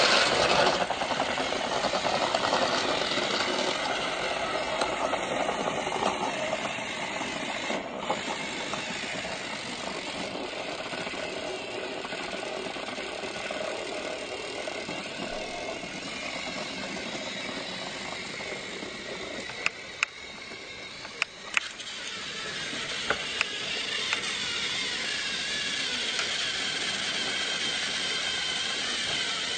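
A steady mechanical running noise from a motor or engine, with rattling, loudest at the start. A few sharp clicks come about twenty seconds in.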